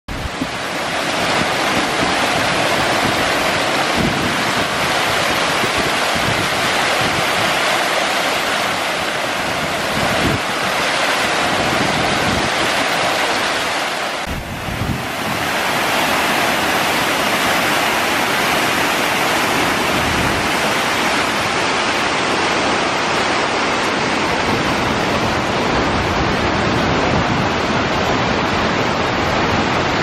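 River water rushing in high, muddy flow over a dam spillway and through white-water cascades: a steady, loud rush. It dips briefly about halfway through.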